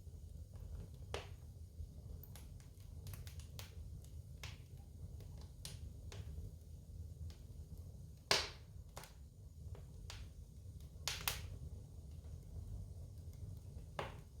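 Wood fire crackling in a fireplace: scattered sharp pops and snaps over a low steady rumble, with two louder pops about eight and eleven seconds in.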